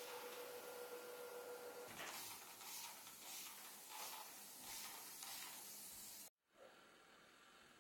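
Fine-mist trigger spray bottle misting houseplants: a run of short, soft hisses, about one and a half a second. The sound cuts off suddenly about six seconds in, leaving faint room tone.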